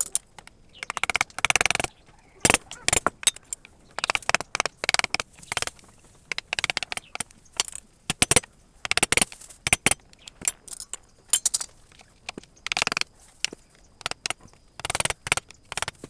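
A wood-carving chisel struck with a mallet as it cuts into wood: sharp, irregular taps, some coming in quick runs of several strikes.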